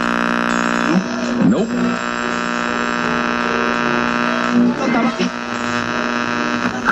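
A loud, steady buzzing hum with many overtones, unchanging in pitch, with brief faint voice fragments about a second and a half in and again about five seconds in.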